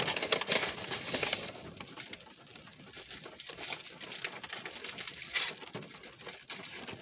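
Takeout food wrappers, foil and paper, rustling and crinkling as the food is unpacked and handled, in a run of short crackles. The crackling is busiest in the first second and a half and there is a louder rustle a little past five seconds in.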